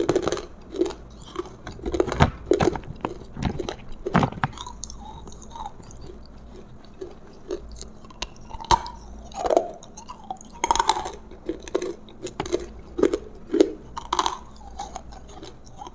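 Close-miked chewing and biting of food: irregular, moist mouth sounds with sharper crunchy bites every second or two.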